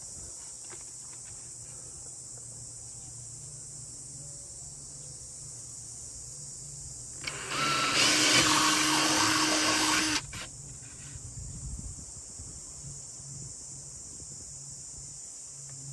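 A small handheld power tool runs at a steady speed for about three seconds, starting about seven seconds in and cutting off suddenly.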